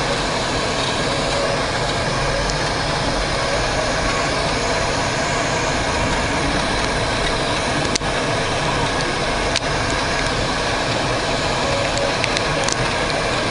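Tractor engine running steadily, with a couple of brief clicks about eight and nine and a half seconds in.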